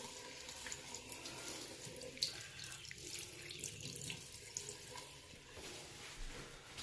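Faint running water as a water heater is drained with a hot water faucet open to relieve the pressure, with scattered small clicks.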